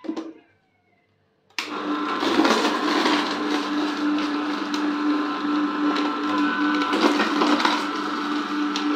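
A cold-press slow juicer starts up about one and a half seconds in. Its motor runs with a steady hum while the auger crushes chopped carrot and beetroot, with scattered cracks.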